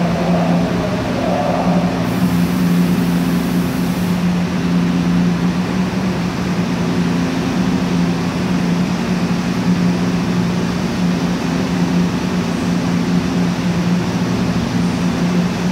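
Seoul Subway Line 7 train standing at a station platform with its equipment running: a steady low hum over constant noise, with a brief wavering tone near the start.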